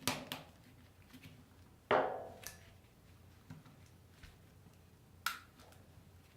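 Sharp clicks and snaps from a Remington model 18491 trigger lock being twisted off a revolver without its key, as its ratchet mechanism is forced. The loudest snap comes about two seconds in, with another sharp click near five seconds.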